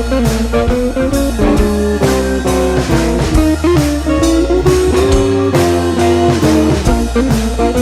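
Background music: a blues-rock track with guitar and a steady drum beat.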